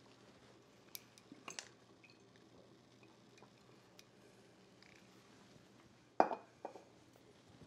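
Kitchenware being handled: a few light clicks, then a sharp knock about six seconds in with a smaller one just after, like a pan, bottle or utensil being set down on a hard surface.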